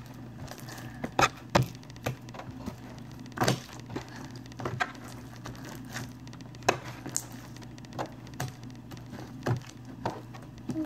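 Fluffy shaving-cream slime being kneaded and stretched by hand, making sharp, irregular clicks and pops, about a dozen in all.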